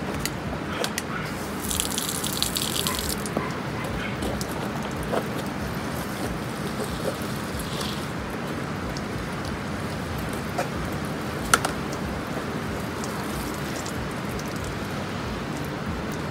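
Water from a hose spraying onto a pickup truck and running off, with drips and splashes; a short louder hiss of spray about two seconds in, and one sharp click about eleven seconds in.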